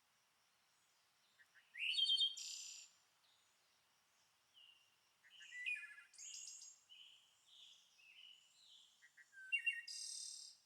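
Songbirds singing: three loud phrases of quick, high notes and trills, about two, six and ten seconds in, with softer calls between.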